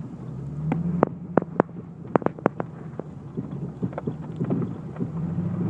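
Car driving slowly on a snowy street, heard from inside the cabin: a steady low engine hum with a series of irregular sharp clicks and knocks, clustered in the first half.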